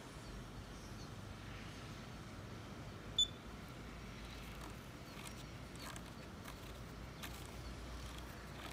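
A single short, high electronic beep about three seconds in, over a faint low hum and a few soft clicks.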